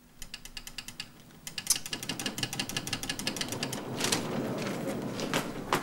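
Passenger lift machinery and sliding doors making a fast, even clicking that builds into a dense mechanical rattle, with a few louder knocks near the end.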